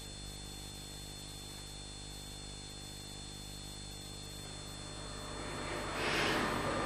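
Steady electrical mains hum and buzz on a home-video recording, a stack of steady tones. Near the end a hissing noise swells in.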